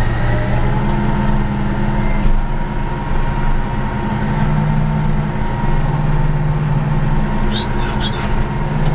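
Caterpillar D9 bulldozer's diesel engine running steadily under load while the dozer pushes dirt, its low drone shifting slightly about four seconds in. Two short high squeaks come near the end.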